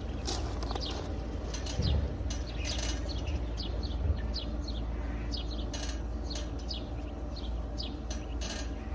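Small birds chirping, many short falling chirps one after another, over a steady low rumble. Two dull thumps about two and four seconds in.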